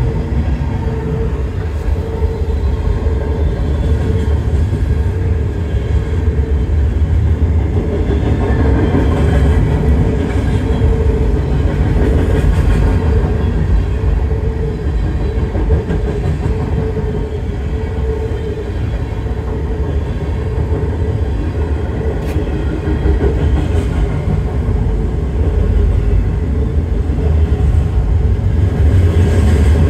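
Freight train rolling past close by, gondolas and then tank cars: a steady, loud rumble of steel wheels on the rails that keeps on without a break.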